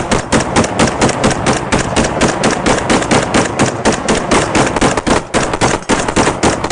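Two AR-15-style rifles firing together in a rapid, continuous string of overlapping shots, many a second.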